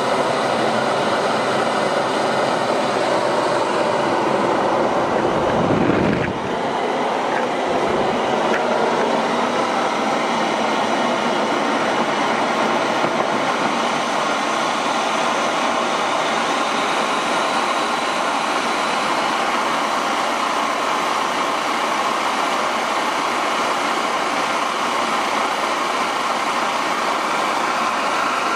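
Homemade turbocharger jet engine running with a steady, loud roar. About six seconds in there is a short low rumble and the sound drops a little, then it runs on steadily.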